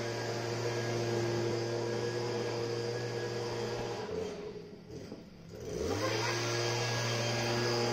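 Steady motor hum, a low drone with higher overtones. It dies away about four seconds in and spins back up with a rising pitch about six seconds in.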